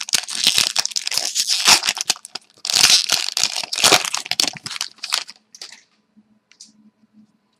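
Crinkling and rustling of a trading-card pack's wrapper and hockey cards being handled, with quick crackles, for about five and a half seconds before it stops.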